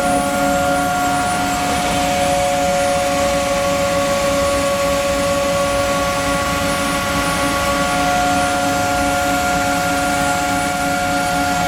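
Haas OM2A CNC milling machine running steadily: a whine of several steady tones over an even hiss.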